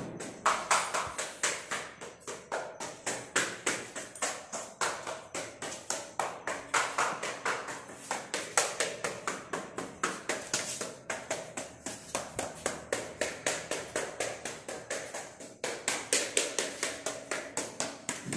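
Steady rhythmic beating of a woven bamboo winnowing basket (soop) with a stick, about four strikes a second: the dawn ritual of driving poverty out of the house.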